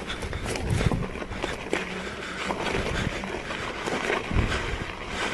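Electric unicycle ridden over a rocky dirt trail: a rough, irregular crunch and rattle of the tyre on stones with scattered sharp knocks, and a low thump about four seconds in.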